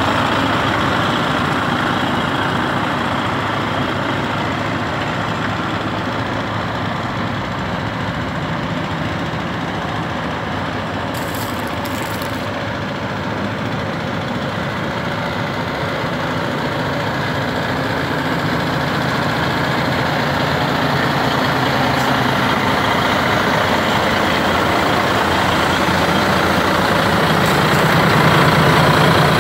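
Volvo FH16 550 truck's 16-litre straight-six diesel idling steadily, growing louder near the end.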